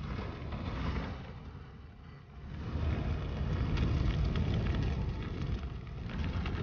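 Fire burning: a deep rumble with crackling, swelling about two and a half seconds in.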